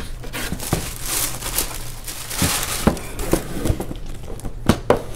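Wrapping paper rustling and crinkling as a pair of sneakers is unwrapped and lifted out of a cardboard shoebox, with a few short knocks of the shoes and box against a wooden table.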